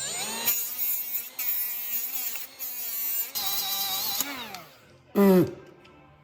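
A small high-speed rotary grinding tool whining as it grinds the rivet heads off a motorcycle drive chain. Its pitch wavers as it bites and then falls away as it winds down about four seconds in. A short second burst with falling pitch comes about five seconds in.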